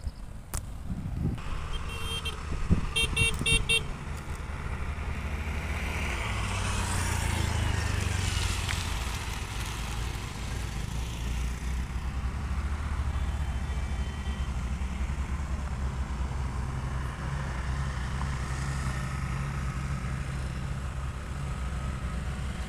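A vehicle horn sounds in a rapid series of short toots about two seconds in, then a bus engine runs steadily as it climbs the hill road, swelling a few seconds later.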